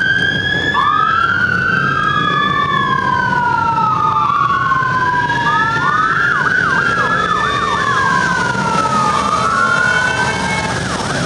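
Sirens of a column of police motorcycles all sounding at once: several wails rising and falling out of step with each other. A quicker yelp cuts in about halfway through and again near the end, over the low rumble of the motorcycle engines.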